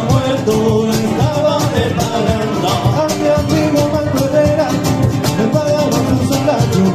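Live acoustic rumba played on two Spanish guitars, strummed with a steady beat on a cajón.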